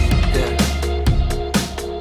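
Background music: electronic pop with a steady beat of about two beats a second over a deep bass.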